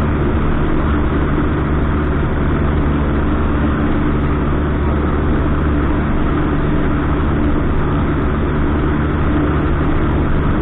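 Cessna 152's four-cylinder Lycoming engine and propeller running steadily at cruise in flight, a constant drone heard inside the cabin.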